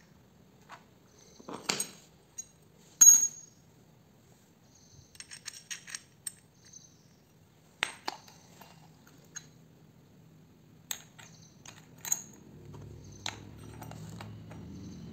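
Small metal parts clinking and clicking as a chainsaw's washer, clutch drum and clutch are handled and fitted back onto the crankshaft, with one sharper clank about three seconds in. A low steady hum comes in near the end.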